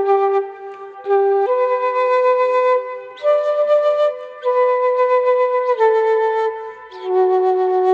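Solo flute playing a slow melody of long held notes, in short phrases with brief pauses between them; the line climbs in the middle and settles lower again near the end.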